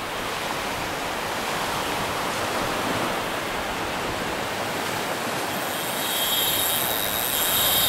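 Small waves breaking and washing onto a sandy beach: a steady, even rush of surf. About five and a half seconds in, a high, thin, steady whine joins it.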